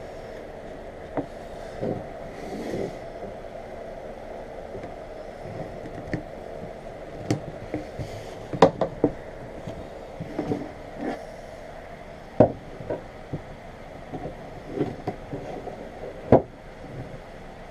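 PVC pipe pieces and a roll of transfer tape being handled and fitted together, with scattered plastic knocks and clicks against a plywood tabletop and a pipe stand. The sharpest clicks come in a quick cluster about halfway through, with two more single knocks later on. A steady background hum runs underneath.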